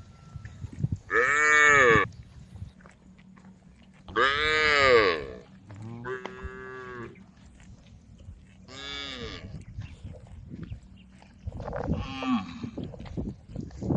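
Cattle mooing: about five long calls a couple of seconds apart, each rising and then falling in pitch.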